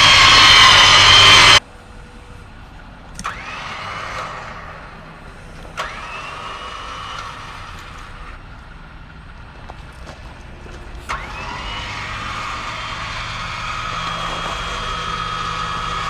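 Smittybuilt X20 electric winch driven from its wireless remote. It runs loudly, then cuts off suddenly about a second and a half in. It is switched on three more times, each start a click followed by a motor whine rising in pitch. The last start, about eleven seconds in, keeps running as a steady whine.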